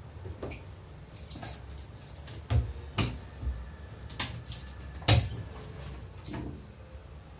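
Irregular household knocks and clicks, about nine of them, the loudest around two and a half and five seconds in, over a low steady hum, from someone moving about barefoot on a tiled floor beside a wooden cupboard.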